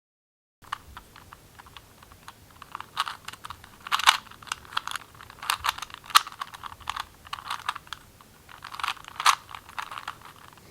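A 3x3 Rubik's Cube being twisted by hand: quick, irregular plastic clicks and clacks as its layers turn, with a few louder clacks among them.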